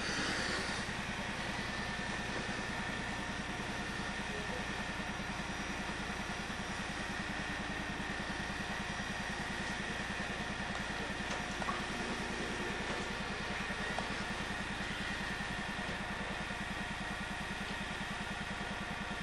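A steady mechanical hum with a fast, even low pulse, like an engine or motor running. A few faint knocks come around the middle.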